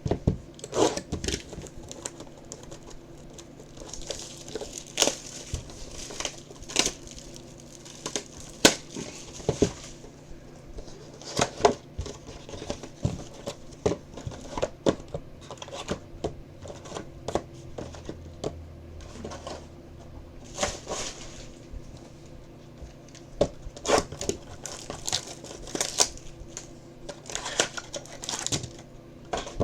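Sealed boxes of trading cards being torn open by hand: plastic wrapping crinkling and cardboard tearing in irregular crackles and snaps.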